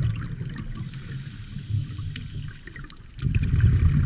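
Underwater sound picked up by a camera beneath the surface: a low rumbling water noise with faint scattered crackling clicks, growing markedly louder about three seconds in.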